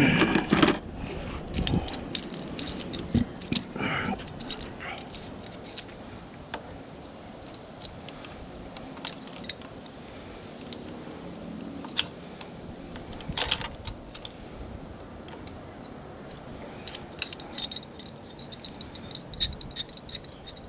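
Scattered small metallic clinks and taps as metal tools and outboard lower-unit parts are handled during a prop-shaft seal repair. The clicks come every second or so, grow denser near the end, and sit over a low steady background.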